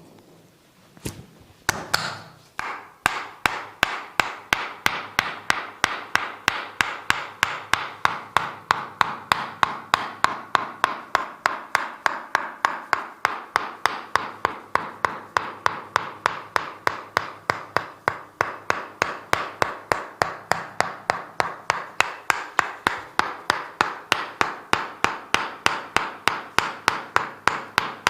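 A massage hammer tapping rhythmically on a person's body, about three sharp strikes a second. After a few scattered knocks it settles into a steady beat from about three seconds in.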